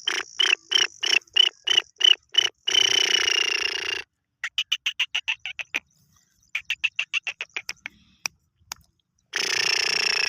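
Bird calls: runs of quick, sharp repeated notes, broken twice by a longer, harsh drawn-out call, with abrupt silent gaps between the bouts.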